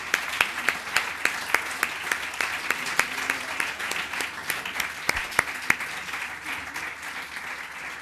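Audience applauding, a dense run of hand claps that gradually dies down toward the end.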